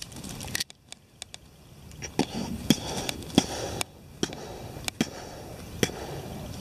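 Outdoor background hiss with sharp ticks about once a second.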